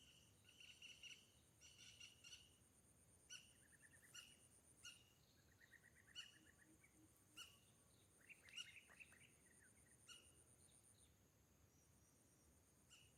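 Faint wild birds calling, with repeated short high chirps, short trills about four and six seconds in, and a brief flurry of calls near nine seconds. A steady, thin, high insect tone runs underneath.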